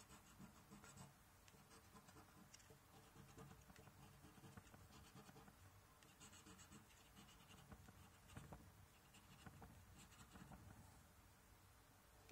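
Coin scraping the scratch-off coating of a scratchcard, heard faintly in a few short bursts of fine, rapid scratching.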